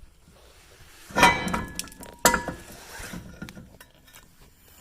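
A brake rotor clanking onto the wheel hub and studs, two sharp metal clanks about a second apart, each leaving a short metallic ring, then a few lighter clicks.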